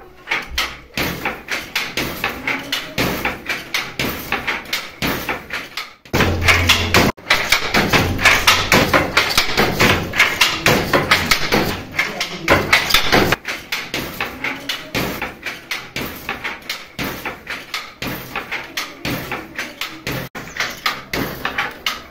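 Wooden handloom weaving at a steady pace: a quick, regular run of wooden clacks, about three a second, from the shuttle and the beater striking. Louder between about six and thirteen seconds in.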